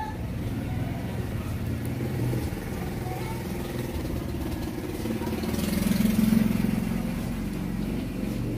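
Road traffic: vehicle engines running steadily, with one vehicle passing louder about six seconds in.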